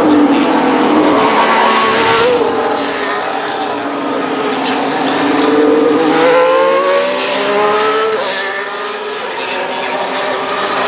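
Formula 1 cars' 1.6-litre turbocharged V6 hybrid engines running at speed on track, their notes overlapping. The pitch climbs for several seconds, then drops suddenly about eight seconds in.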